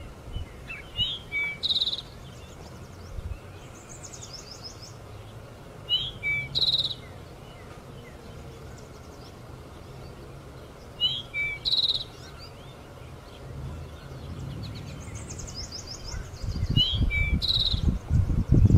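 A songbird singing the same short phrase four times, about every five seconds: a swooping whistle, a short lower note, then a high buzzy trill. A low rumbling noise comes up near the end.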